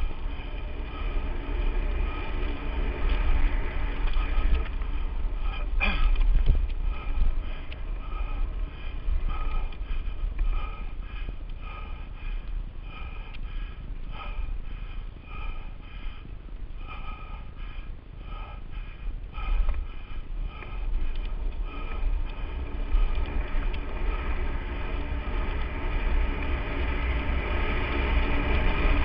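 Lapierre Spicy 516 full-suspension mountain bike ridden fast down a dirt trail: a steady rumble of wind on the microphone over the noise of the tyres and the rattle of the bike. A sharp knock comes about six seconds in.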